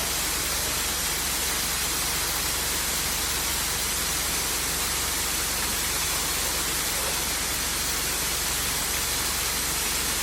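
Waterfall: water falling and splashing in a steady, loud rush of noise.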